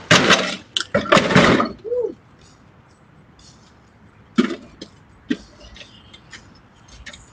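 A zero-turn riding mower tipping over onto its rider with a loud crash and clatter during the first second and a half, then a short cry at about two seconds. After a lull come a few sharp knocks and clanks as the mower is shoved back over.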